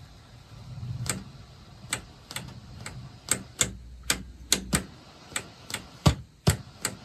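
A 1964 Fisher 500-C tube receiver, powered up at reduced voltage, giving irregular sharp clicks and pops, about fifteen in all, with two heavier thumps near the end. Under them is a low hum that stops about five seconds in. These are the receiver's first signs of life, and it sounds like it wants to work.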